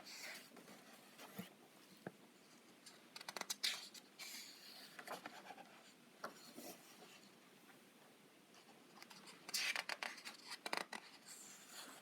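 Faint papery rustles and swishes of a soft-cover colouring book's pages being turned and handled, with the longest rustle near the end.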